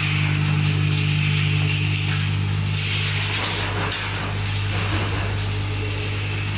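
Walnut-cracking machinery running: a steady low electric-motor hum under an uneven rattle and clatter of nuts and shells passing through.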